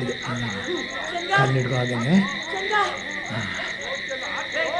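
Night chorus of crickets and frogs: a steady high shrill drone with a fast, even pulsing chirp above it. Over it come short wordless grunts and cries from people.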